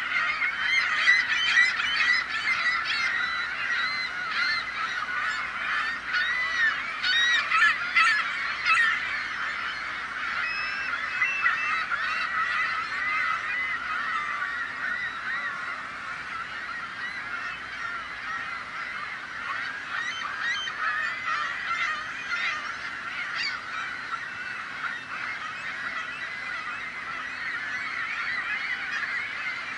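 A large flock of seagulls calling all at once, many overlapping harsh calls in a continuous din, loudest in the first ten seconds or so.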